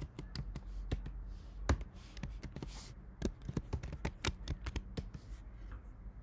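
Keystrokes on a computer keyboard: an irregular run of sharp key clicks that thins out near the end.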